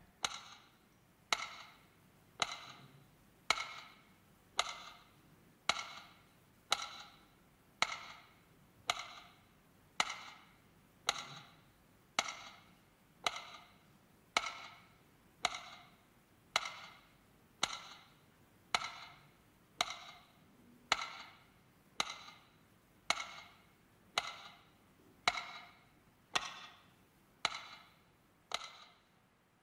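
Metronome ticking at a slow, even beat, a little under one tick a second, each tick ringing briefly: the beat marking a minute of silence.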